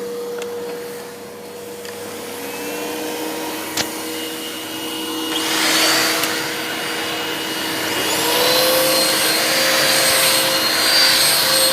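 Several household vacuum cleaners running at once, switched on one after another. Each motor spins up with a rising whine, about 2.5 s in, about 5.5 s in and about 8 s in, so the combined drone and air rush get louder in steps. There is a sharp click near 4 s.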